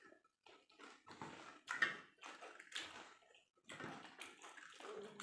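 People eating golgappas (pani puri): crisp puri shells crunching and the spiced water slurped, in a string of short, irregular mouth sounds.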